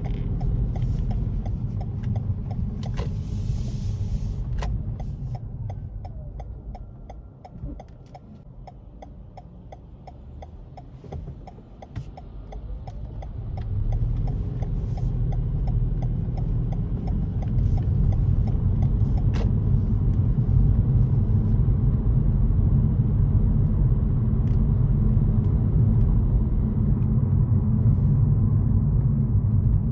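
Car on the road, a steady low rumble of engine and road noise with a regular light ticking through the first part. It goes quieter for several seconds in the middle, then grows louder and stays up as the car picks up speed again.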